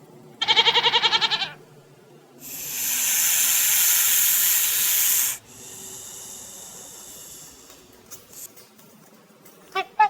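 A string of animal sound clips: a short quavering call, then a loud hiss lasting about three seconds, followed by a fainter hiss, and a few short chirping calls near the end.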